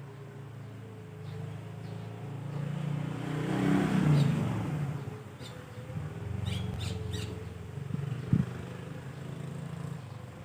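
A few short, high bird chirps about halfway through, over a low steady hum and a swell of noise that builds and fades, loudest about four seconds in. A single knock near the end.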